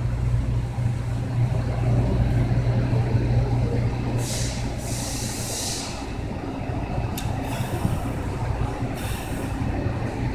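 Steady low mechanical hum, with a burst of hiss about four seconds in, another near the end, and a sharp click a little after seven seconds.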